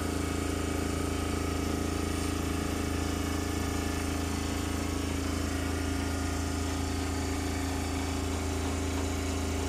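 An engine idling steadily: an even, unchanging hum.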